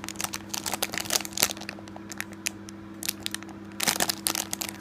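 Plastic packaging crinkling and crackling as it is handled, in irregular crackles that grow thicker near the end, over a low steady hum.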